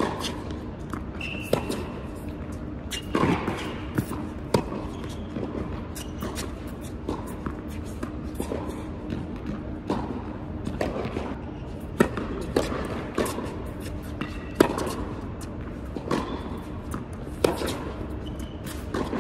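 Tennis balls struck by racquets and bouncing on an indoor hard court, sharp pops at irregular intervals that ring out in the large hall, with a gap of a few seconds between rallies.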